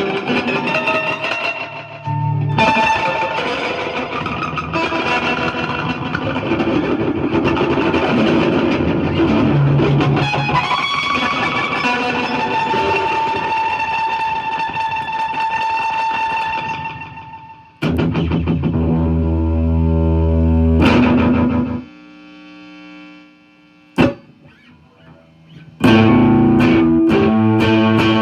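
Distorted electric guitar improvising through a delay pedal, the repeats smearing into a dense, sustained wash. Past the middle the wash fades out, a few loud chords follow, then a quieter stretch with one sharp click, and loud playing starts again near the end.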